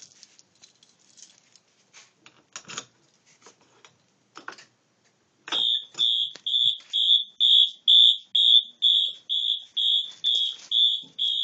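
Clicks and knocks of the alarm panel and key being handled. About five and a half seconds in, a fire alarm system starts sounding as a high-pitched electronic beep that pulses about twice a second: the system going into alarm on a drill test.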